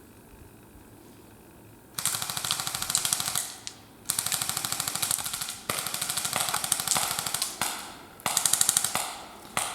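Airsoft guns firing rapid full-auto bursts: several long strings of quick sharp cracks starting about two seconds in, with short pauses between them.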